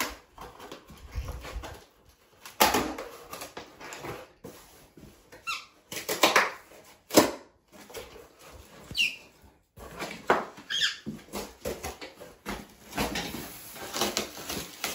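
Cardboard and plastic packaging of a flat-pack shelving unit rustling and scraping as it is unpacked and the parts taken out, in uneven bursts with a few short squeaks.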